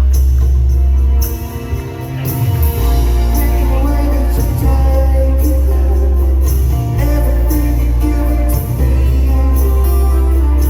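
Live rock band playing a song in concert, heard with a very heavy, boomy bass; the bass drops out briefly about a second in, then comes back.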